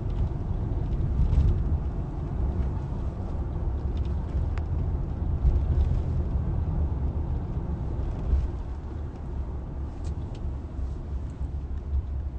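Steady low rumble of a moving car heard from inside the cabin, with a few faint clicks.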